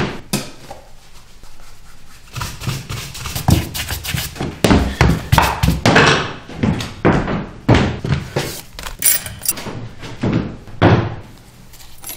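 Knocks and thumps: one sharp thud at the very start, then, after a short lull, a long run of irregular knocks that dies away near the end.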